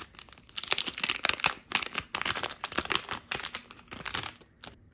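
A Japanese Pokémon card booster pack's foil wrapper being torn open and crinkled as the cards are pulled out, a dense run of crackling that stops near the end.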